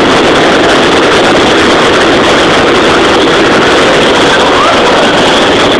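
Hot-air balloon propane burner firing, a loud, steady rushing blast heard close up.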